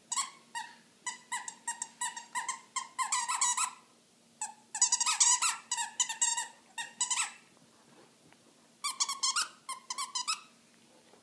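Squeaker in a plush skunk dog toy squeaking again and again as an Akita puppy bites and chews it. The squeaks come in three bouts of quick squeaks, with short pauses between.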